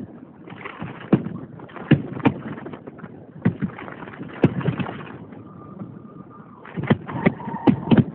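Aerial fireworks shells bursting: about ten sharp bangs at irregular intervals, several coming close together near the end.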